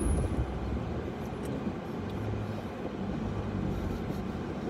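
Truck's road noise heard from inside the cab while driving: a steady low hum of engine and tyres.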